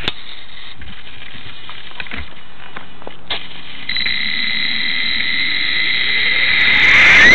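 A few light knocks and clicks, then about four seconds in the T-Rex 450 electric R/C helicopter's motor and gear drive start a steady high whine. The whine grows louder as the rotor spools up, with the pitch rising near the end. It is heard through the onboard camera's microphone.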